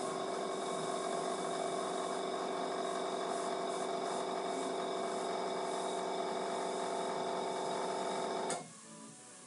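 Small electric airbrush air compressor running with a steady hum, starting abruptly and cutting off sharply about eight and a half seconds in.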